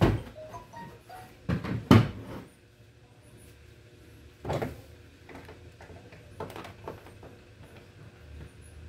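Knocks and clunks of an LCD TV's casing being handled as the set is taken apart. The loudest knocks come at the start and around two seconds in, another at about four and a half seconds, then a few lighter clicks.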